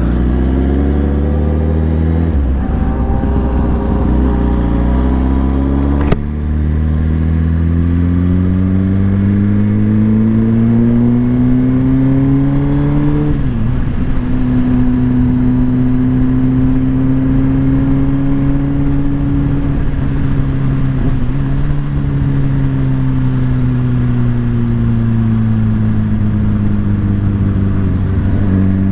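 Motorcycle engine under way, its pitch climbing slowly through the gears with shifts about 6, 13 and 21 seconds in, then easing off and picking up again near the end.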